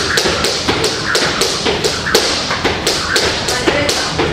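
A fast, fairly even run of sharp taps or knocks, about four a second, each with a brief ringing note.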